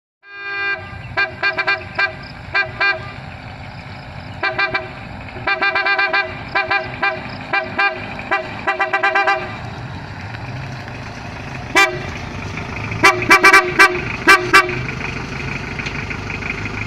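A pair of 'Big Horn' car horns sounded in rapid series of short honks, then a single honk and a final quick burst after a pause, over a vehicle engine running steadily.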